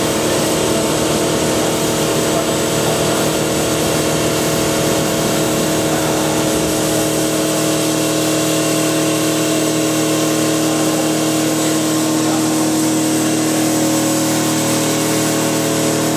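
CNC bridge saw cutting a stone slab with its water-cooled blade: a steady machine whine made of several held tones over an even hiss of spray and grinding.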